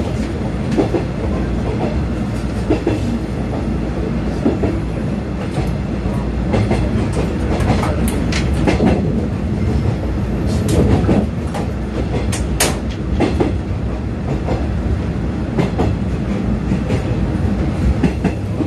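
Interior running noise of a JR 415-series electric multiple unit at speed: a steady rumble of wheels on rail, with sharp clicks as rail joints pass under the car, several in a cluster about halfway through.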